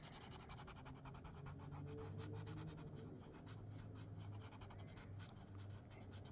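A pen or marker colouring in on paper: quick back-and-forth scratchy strokes filling in a solid black area, faint.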